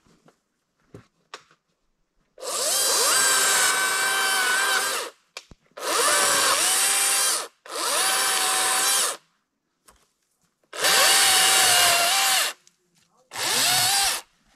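DeWalt cordless battery chainsaw run in five bursts of a few seconds each, its electric motor and chain whining as it cuts limbs off a fallen tree; the pitch dips briefly as the chain bites into the wood and recovers.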